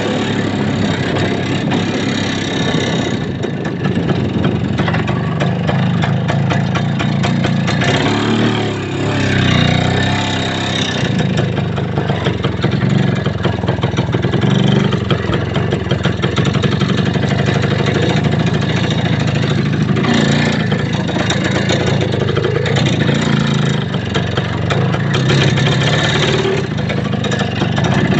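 A vehicle engine running continuously while under way, its revs rising and falling a few times.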